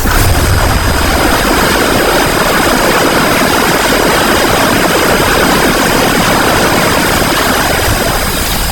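Jet-engine-like sound effect: a steady rushing roar with thin high whining tones over it, starting abruptly and holding even.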